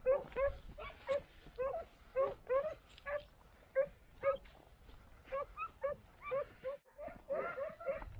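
Italian scent hounds (segugi) barking and yelping in a steady string of short, high yelps, about two a second, with a brief break near the end.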